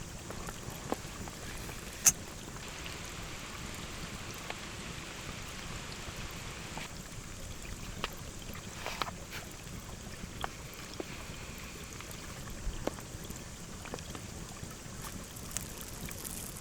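Steady rain with flowing river water underneath, sprinkled with small sharp ticks of drops landing close by. One louder click comes about two seconds in.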